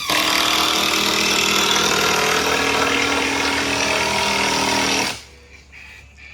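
A loud motorized machine runs steadily for about five seconds, then cuts off suddenly.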